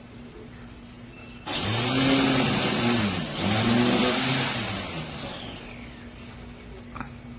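BLACK+DECKER MTE912 6.5-amp corded electric string trimmer switched on about a second and a half in. The motor spins up, dips briefly as the trigger is let off, spins up again and then winds down.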